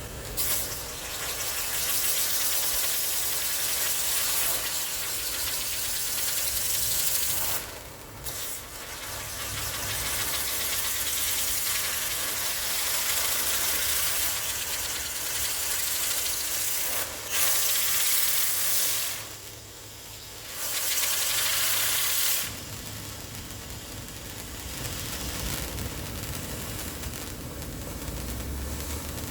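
Fireworks burning with a loud, steady, high hiss for about twenty seconds. The hiss breaks briefly three times, then stops about 22 seconds in.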